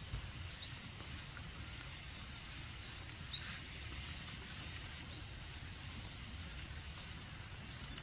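Faint outdoor ambience: a steady low rumble with a hiss over it, and two small sharp ticks, one just after the start and one a little over three seconds in.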